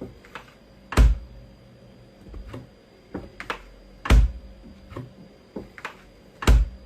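Three dull thumps, about a second in, just after four seconds and near the end, with lighter taps and clicks between them.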